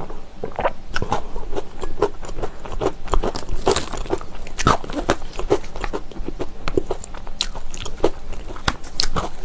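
Crunchy honey wheat braided pretzel twists being chewed close to the microphone: an irregular run of crisp crunches, several a second.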